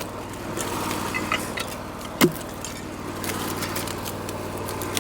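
Wood-Mizer LT40 portable sawmill's engine running steadily, with scattered clicks and one loud knock about two seconds in.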